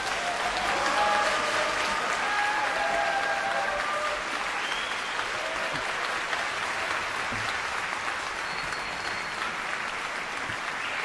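A crowd applauding steadily, with some voices calling out in the first few seconds.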